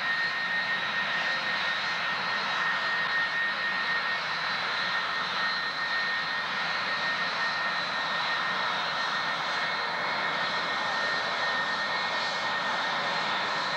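Boeing 757's twin jet engines running at low power as it taxis: a steady high whine over an even rushing noise.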